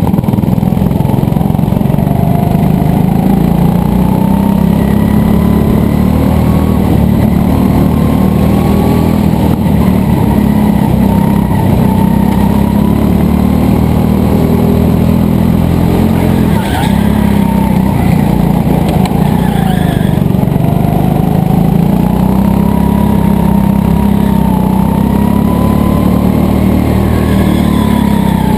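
An onboard go-kart's small engine running hard. Its pitch rises and falls as the kart accelerates and slows through the corners.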